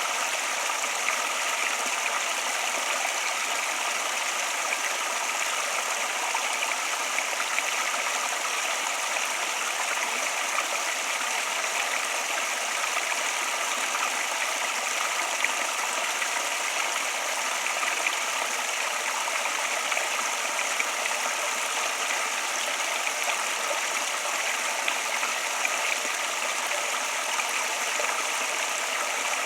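Flowing water: a stream running steadily, with a constant hiss and splash and small flickers of gurgle.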